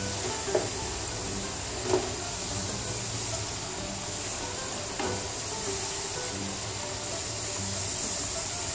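Cubed potatoes deep-frying in hot oil in a pan, a steady sizzle. A metal slotted spoon stirring them knocks lightly against the pan three times.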